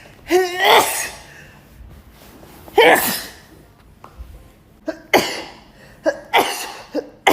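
A woman's sneezing fit: a wavering, drawn-out breath-catch, then four sneezes, the last three in quick succession about a second apart.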